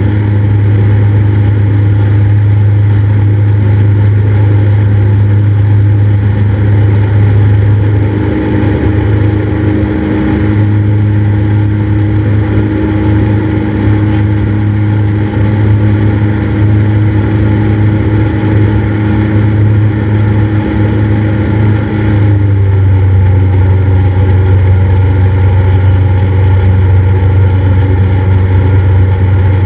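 Cessna 172's four-cylinder piston engine and propeller running steadily in flight, a loud, even drone; its note shifts slightly about three-quarters of the way through, as with a small change of power.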